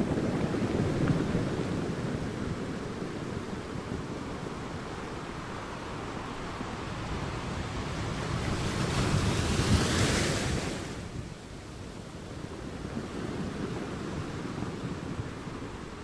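Sea waves breaking and washing up the shore, a steady rushing noise that swells twice, with the biggest surge and hissing wash about nine to ten seconds in before it falls away.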